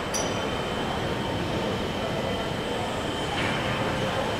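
Steady car-assembly-plant machinery noise: an even hiss and rumble with a thin, high steady whine over it.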